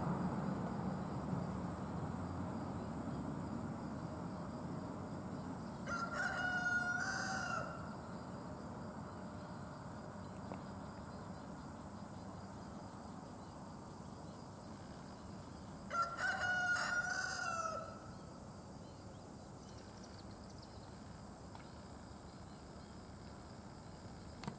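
Rooster crowing twice, each crow lasting under two seconds, about ten seconds apart. A low rumble fades away over the first few seconds.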